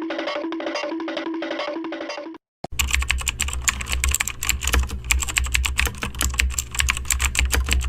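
A short repeating two-note tune, then after a brief gap a fast, dense clatter like keyboard typing over a steady deep bass throb: meme-style music and sound effects.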